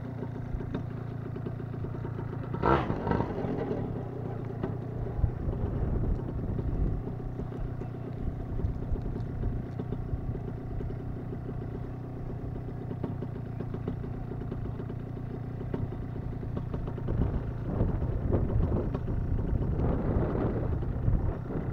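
Paramotor engine idling steadily, with a short louder burst about three seconds in. Rougher, louder noise over the hum near the end.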